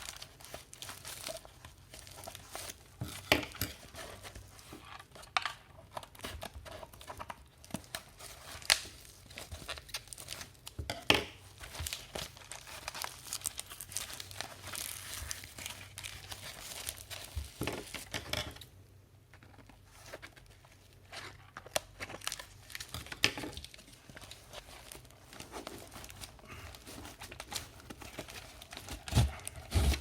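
Packaging being unwrapped by hand: plastic or paper crinkling and tearing in irregular crackles and sharp snaps, with a short lull about two-thirds of the way through.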